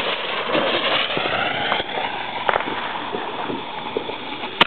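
Firework going off with a steady loud hiss and scattered sharp pops and crackles, then cutting off suddenly near the end.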